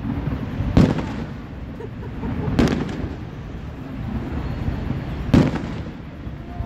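Aerial firework shells bursting: three sharp booms, about a second in, near the middle and about five seconds in, each trailing off in a rumble.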